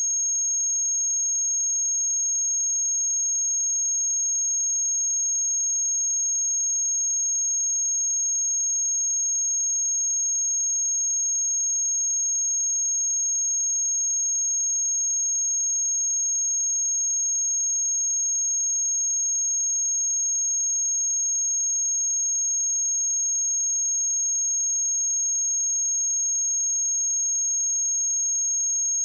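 A steady, high-pitched 6517 Hz sine-wave test tone, one pure tone held at a constant level.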